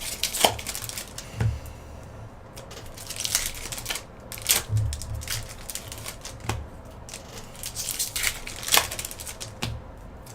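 Hockey card pack wrappers and cards being handled: crinkling and tearing in short irregular bursts, with a few sharp clicks.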